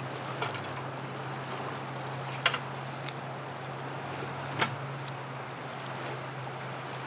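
Fast-flowing glacial water of the Copper River rushing steadily past the bank, over a steady low hum, with a few sharp knocks, the loudest about two and a half and four and a half seconds in.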